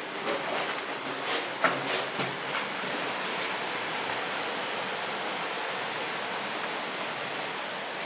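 A few short scuffs and crunches of footsteps on a floor strewn with debris in the first three seconds, then a steady, even hiss.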